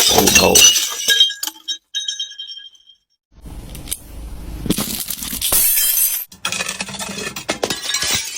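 Glass bottle shattering: a loud crash at the start, with the glass ringing for about two seconds. After a short silence comes a longer stretch of crunching and clinking.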